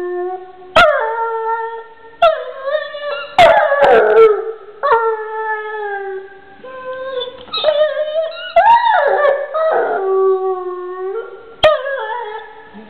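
Young dog howling and whining in a long string of wails that mostly fall in pitch, one rising and falling about two-thirds through, with a few sharp clicks in between.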